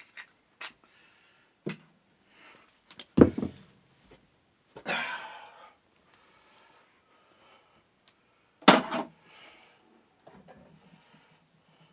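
Knocks, clicks and clatter from metal table-fan parts and screws being handled and set down during disassembly, with two loud thuds about 3 and 9 seconds in and a short scrape about 5 seconds in.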